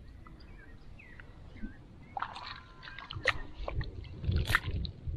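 A hooked guapote splashing and sloshing at the surface of shallow water as it is pulled in on the line, with irregular sharp clicks and splashes starting about two seconds in.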